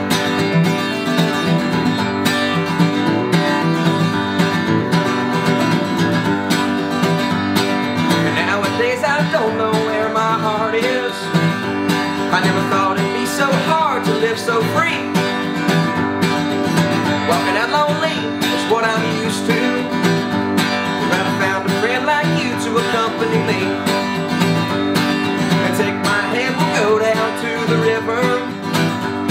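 Acoustic guitar strummed in a steady rhythm, with a man singing over it from about eight seconds in.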